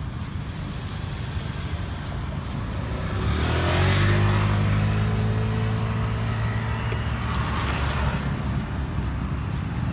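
Street traffic: a motor vehicle's engine runs close by, swelling and rising a little in pitch about three seconds in, then holding steady before easing near the end, over a low traffic rumble. Faint light ticks of a knife slicing strips from a green mango sit beneath it.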